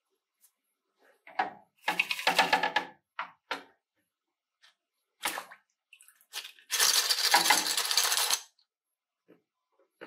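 Small metal lighter parts clinking and rattling in a stainless mesh strainer as it is handled and lifted out of a derusting bath, in several short bouts with a longer, louder one near the end.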